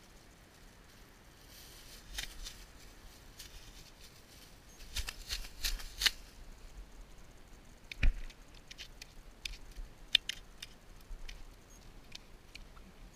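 Scattered light scuffs, scrapes and clicks from an angler moving about on asphalt and handling gear close to a body-mounted camera, with one sharper knock about eight seconds in.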